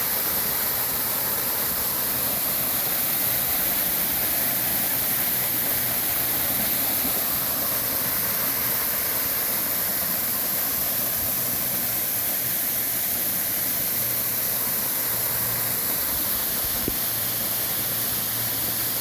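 Waterfall about 8 metres high: a steady, even rush of falling water.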